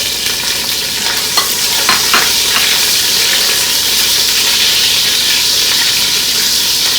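Green chilies and cumin seeds sizzling in hot oil in a cooking pot as they are stirred, with a few sharp clicks of the spoon between one and two and a half seconds in. After that the sizzle settles to a steady, slightly louder hiss.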